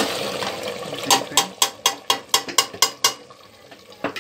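A spoon stirring thick mutton gravy sizzling in an aluminium pot, then, about a second in, a quick run of about nine sharp knocks of metal on the pot, some four a second.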